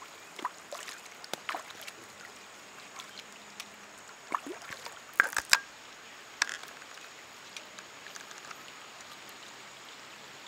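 Hooked tilapia splashing and thrashing at the water's surface in short, scattered splashes, the loudest few a little past the middle.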